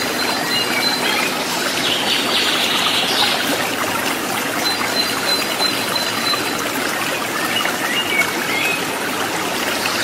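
Small waterfall cascading and splashing over rocks, a steady rush of falling water.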